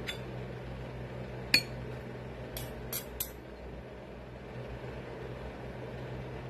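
A metal spoon and fork clinking against a glass soup bowl while eating: a handful of light, separate clinks, the sharpest about one and a half seconds in and a quick run of three a second later.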